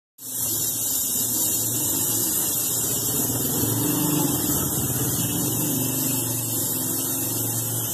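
Gas brazing torch flame hissing steadily against a refrigerator's aluminium evaporator plate, with a low steady hum underneath. It starts abruptly just after the beginning.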